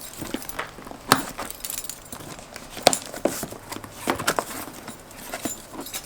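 Cardboard shipping box being opened and handled: a few scattered sharp clicks and knocks, the loudest about one and three seconds in, over faint rustling of packaging.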